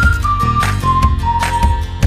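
Background music: a high, clear flute- or whistle-like melody of held notes, one sliding up at the start, over a steady bass and beat.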